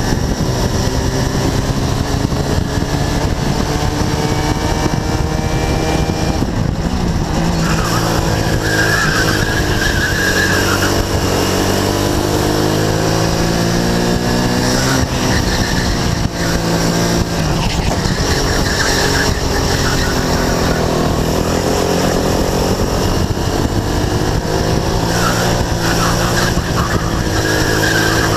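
RX-250 go-kart engine running hard over a lap, its pitch climbing on the straights and dropping for the corners, with wind rushing over the onboard microphone. Tyres squeal briefly through two corners.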